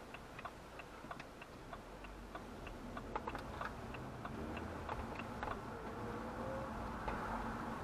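A car's turn indicator ticking steadily as the car makes a turn, heard inside the cabin over low engine and road noise. The ticking stops about two-thirds of the way through, and the road noise grows as the car drives on.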